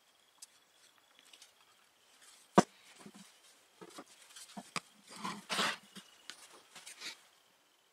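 Workshop handling noise: plastic spring clamps being worked onto a glued pine block, with one sharp click about two and a half seconds in, then a run of light knocks, clicks and rustling of work gloves.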